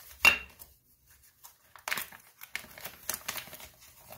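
A clear plastic packaging bag crinkling as it is handled and opened and its contents are drawn out, with one sharp, loud crackle just after the start and a run of crinkling from about two seconds in.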